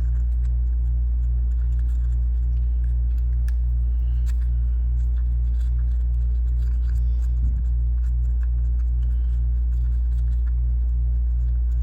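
Steady low electrical hum with a regular throb about two and a half times a second, over faint light scratching and ticking as a swab scrubs sticky flux off a circuit board.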